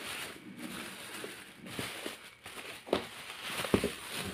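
Thin plastic wrapping rustling and crinkling as it is pulled off a steam iron by hand, with a couple of light knocks about three seconds in.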